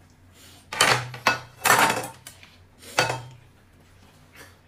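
Dishes and cutlery clattering: a string of clinks and knocks in the first couple of seconds, then one more knock about a second later.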